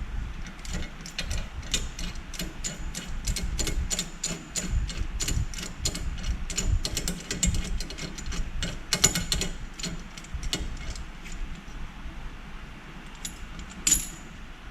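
Hand ratchet wrench clicking in a rapid, even run for about ten seconds as a nut is turned on the vehicle's front suspension, then a few single clicks and one sharper clink near the end.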